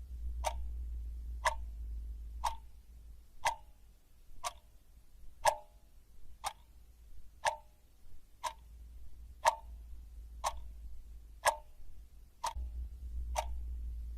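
A clock ticking steadily, one tick a second, over a low rumble that fades after about three seconds and comes back near the end.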